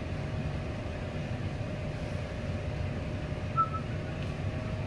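Steady low mechanical hum with a faint steady tone running through it, and one brief small squeak about three and a half seconds in.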